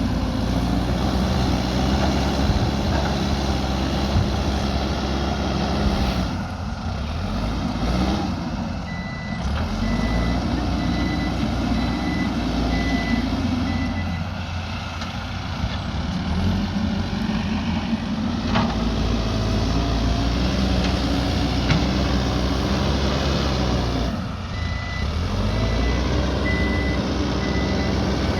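Backhoe loader's diesel engine working under varying load, its note dropping and picking up again several times. A reversing alarm beeps steadily in two spells, one in the first half and one near the end.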